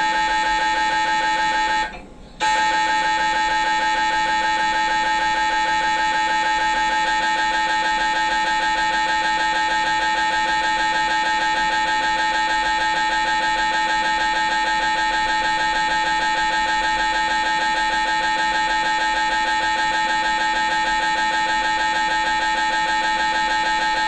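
MRI scanner's gradient coils running a coronal diffusion-weighted (echo-planar) brain sequence: a loud, steady high-pitched buzzing tone. It stops briefly about two seconds in, then resumes.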